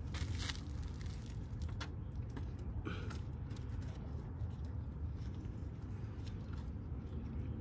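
Light clicks and rattles of hands and tools working loose the plastic fairing on a Kawasaki ZX-10R sport bike, scattered irregularly over a steady low rumble.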